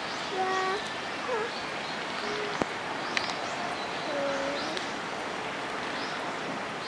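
Birds calling at a zoo's bird exhibit: scattered short chirps and a few held, pitched calls over a steady background hiss, with faint people's voices.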